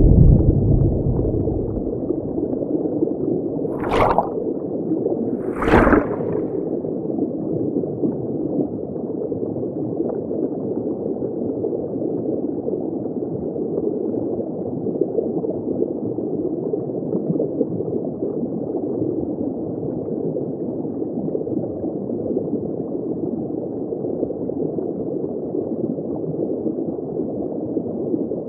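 River current heard through an underwater camera: a steady, muffled gurgling rush with no high hiss. A heavier low swirl at the start, and two brief splashes about four and six seconds in.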